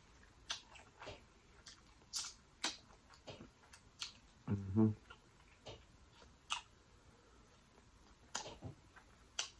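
Faint close-miked eating sounds: scattered wet mouth clicks and lip smacks from chewing a seafood boil, with a short hum about four and a half seconds in and finger-licking smacks near the end.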